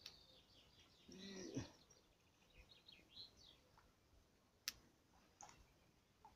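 Near silence with faint bird chirps, then two sharp clicks later on.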